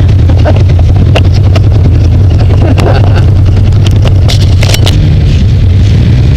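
Off-road vehicle engine running steadily close by, with scattered clicks and knocks over it; the engine note steps up slightly about five seconds in.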